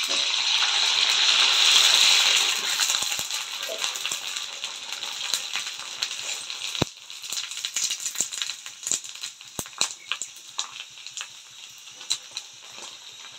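Kurdai (dried wheat crisps) deep-frying in hot oil: a loud sizzle as the batch goes in, settling after about three seconds into a lighter, steady crackle with a few sharp clicks.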